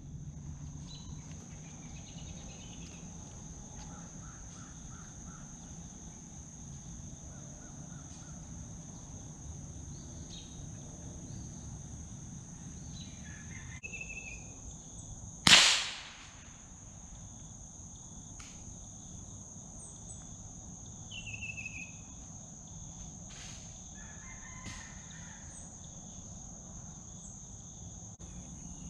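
A single sharp .22 rifle shot about halfway through, fired up into the trees at a squirrel. Behind it, a steady high insect drone and a few faint chirping calls.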